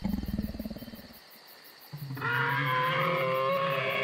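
Dinosaur roar sounds: a rough growl that fades away within the first second, then after a short pause a longer, steadier roar that runs to the end.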